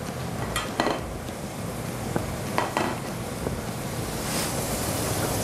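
A few light clicks of metal plating tweezers and crockery on a steel counter over a steady rushing background noise.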